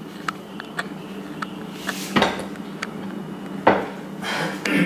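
Kitchen handling sounds while salt is added from a canister to a stainless steel pot of soaking black beans: small clicks and two sharper knocks of pot and canister, and a short rustling hiss near the end.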